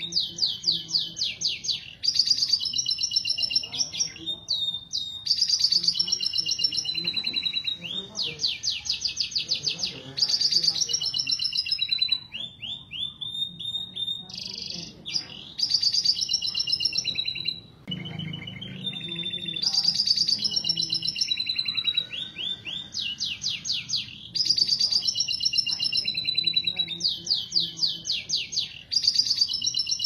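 Domestic canary mating song: rapid rolling trills in phrases of one to two seconds, broken by short high notes. It is the song of a male in breeding condition, mixed with a hen's calling.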